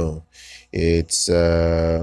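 A man's voice narrating, speaking slowly with a long drawn-out syllable in the second half.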